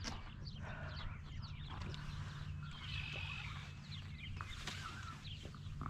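Small birds chirping and twittering on and off, with a brief louder run of song about three seconds in, over a steady low rumble.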